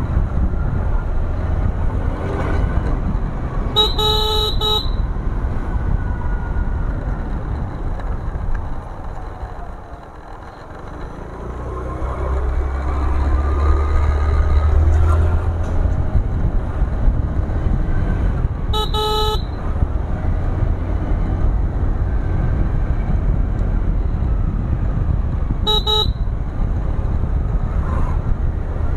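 Steady low wind and engine rumble of a two-wheeler in motion, dipping briefly about a third of the way through and then swelling back. Over it a vehicle horn honks three separate times, the first two about a second long and the last one short.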